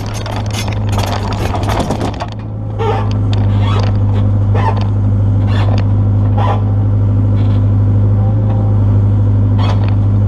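Excavator's diesel engine running steadily. Dense clanking and rattling fills the first couple of seconds, then short knocks or squeaks come about once a second over the engine.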